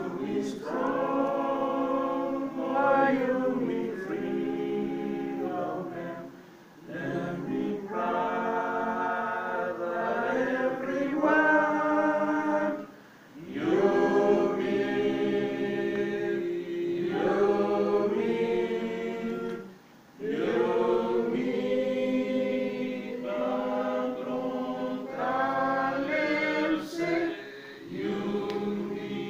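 A group of people singing together unaccompanied, in long sustained phrases of about six to seven seconds with short breaks between them.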